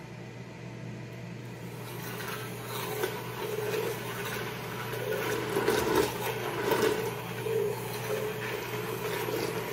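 Vitamix immersion blender running in a pot of roasted tomato soup: a steady motor hum, joined about two seconds in by the churning of the soup, which grows louder.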